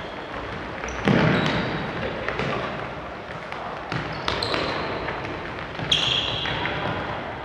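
Football being kicked and bouncing on a wooden gym floor, with sneakers squeaking on the boards, echoing through a large sports hall. The hardest kick lands about a second in, with more ball strikes and squeaks near four and six seconds.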